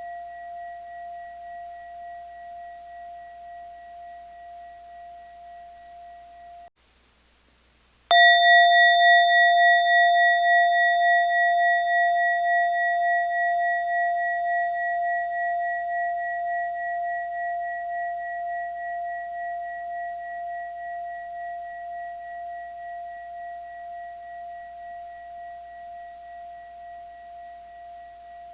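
A bell ringing: the fading tail of one stroke breaks off abruptly about seven seconds in. After a second and a half of silence the bell is struck again and rings out with a clear tone and a few higher overtones, fading slowly with a gentle waver over about twenty seconds.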